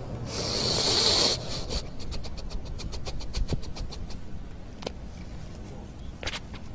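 A man weeping with his face covered: one long breathy sob lasting about a second, then a run of quick faint clicks and a few more single ticks.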